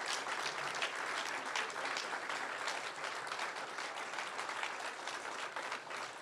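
Audience applauding, a dense patter of many hands clapping that slowly eases off toward the end.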